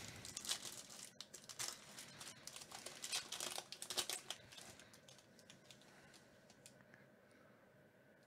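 Foil wrapper of a Topps baseball card pack crinkling and tearing open by hand: a dense run of crackles over the first five seconds or so, then quieter as the cards come out of the pack.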